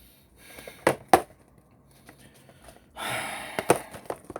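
Pringles cans being handled: two sharp knocks about a second in, then about half a second of rustling or scraping with another knock near the end.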